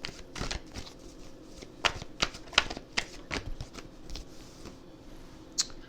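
Tarot cards being shuffled by hand: a run of quick, sharp card flicks, about three a second, that thin out after about three and a half seconds, with one last flick near the end.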